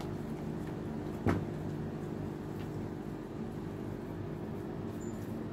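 Steady low mechanical hum, with one sharp knock about a second in.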